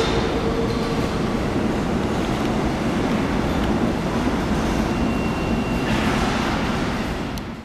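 R32 subway train departing, its wheels running on the rails with a steady rumble that fades near the end as it pulls away down the tunnel.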